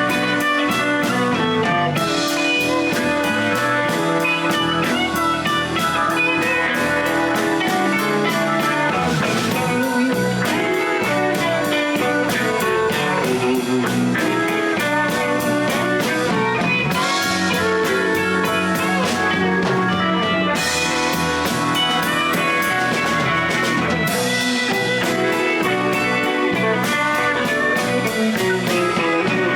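Blues band playing a jam, guitar lines over a drum kit.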